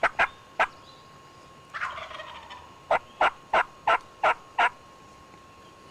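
Wild turkey calling: three sharp notes, a short rattling burst about two seconds in, then a run of six evenly spaced notes, about three a second.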